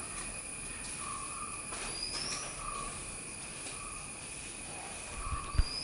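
Room background without speech: a steady high hum and hiss, with faint short chirps recurring every second or so and two brief rising chirps. Sharp clicks come near the end.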